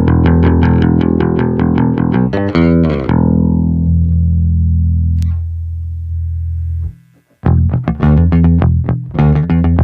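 Yamaha ERB 300 II electric bass played solo: a run of quick plucked notes, then one low note left ringing for about four seconds and cut off abruptly. After a short gap, another run of quick notes.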